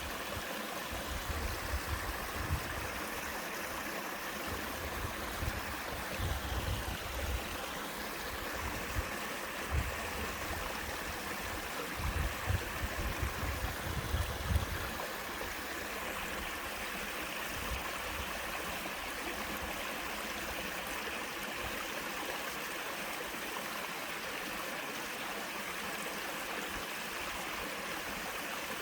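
Water of a two-tiered sliding waterfall on a mountain stream, rushing steadily over rock. Irregular low rumbles come and go through the first half.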